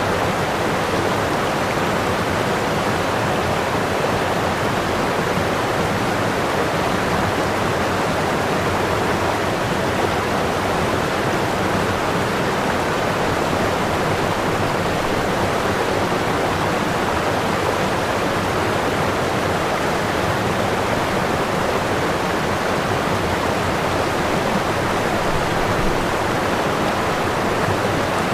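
Running water rushing steadily and evenly, with no change in loudness.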